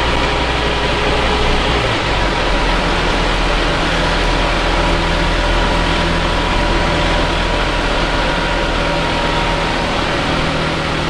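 Scania N310UA city bus's vertically mounted rear engine running, heard inside the passenger cabin as a steady low drone with a faint constant whine above it. The engine note shifts about two seconds in.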